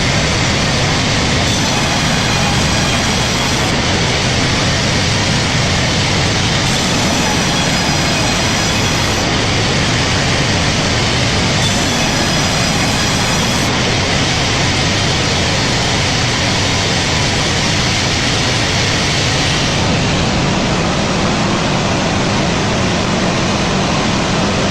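Loud, steady machine noise, a dense rushing hiss with faint high-pitched whines that come and go every few seconds.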